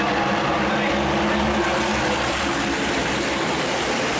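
NASCAR Whelen Modified race cars' V8 engines running at racing speed around the oval, a steady, loud, continuous engine noise from the pack of cars.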